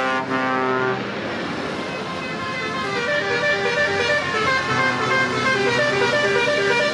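Truck horn sounding a long steady blast that stops about a second in, over passing truck engines. From about three seconds in, a horn plays a repeating tune of stepping notes.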